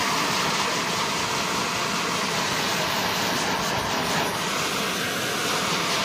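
Heat gun running, a steady loud rush of blown air, heating vinyl wrap film.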